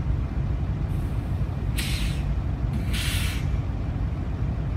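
Diesel-electric freight locomotives idling with a steady low rumble. Two short hisses of air come from their air system a little under two seconds in and around three seconds in, with a fainter hiss about a second in.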